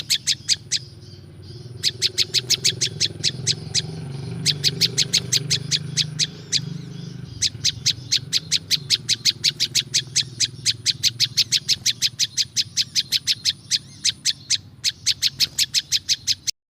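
Prinjak lumut (a small Indonesian prinia-type warbler) singing a fast run of sharp, evenly repeated high chip notes, about six a second, in several bouts broken by short pauses. A low steady hum runs underneath. The sound cuts off abruptly near the end.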